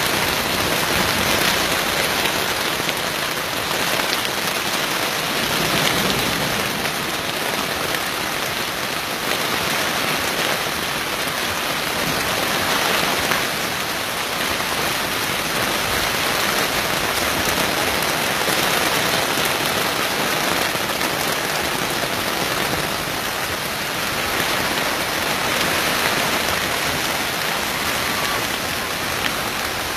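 Heavy rain pouring down in a storm, a steady even hiss of rain on surfaces.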